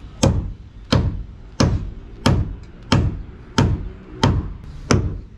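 Hammer driving nails into a new wooden deck plank: a steady run of sharp blows, about three every two seconds.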